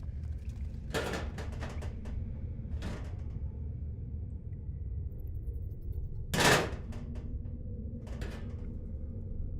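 A steady low rumble with a few sharp knocks over it, and one loud bang about six and a half seconds in.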